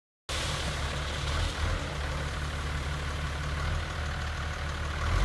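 Diesel engine of a tipper truck running steadily while its bed is raised to dump a load of sand, cutting in suddenly after silence.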